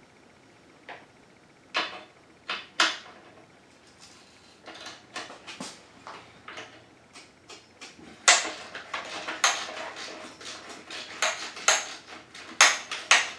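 Hand ratchet with a 12mm socket working the exhaust clamp bolt on a four-stroke dirt bike, loosening the clamp that holds the pipe to the header: a few scattered metal clicks, then an irregular run of clicks and clanks from about halfway in.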